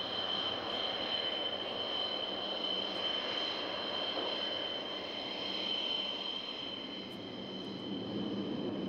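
MiG-35's twin turbofan jet engines running, a steady high-pitched whine over a broad rush of noise. The low rumble grows stronger near the end.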